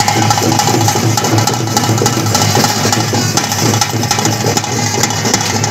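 Loud bhuta kola ritual music: barrel drums beaten with sticks in dense, fast strokes, with a steady held piping note running over the drumming.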